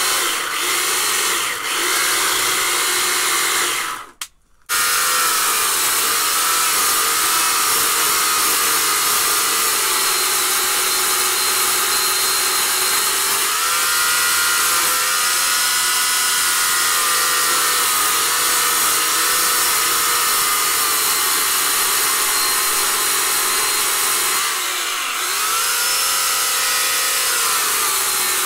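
Portland 14-inch electric chainsaw with a 9-amp motor running and cutting into a log, a steady high motor whine that drops in pitch twice as the chain bogs in the wood and then picks back up, with a brief break about four seconds in. The owner judges the saw to lack the power and chain speed needed for carving.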